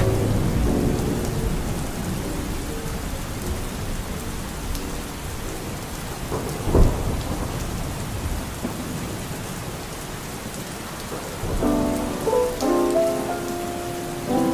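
Steady rain falling, with one brief low clap of thunder about halfway through. Soft music fades out at the start, and a new soft tune begins about three quarters of the way through.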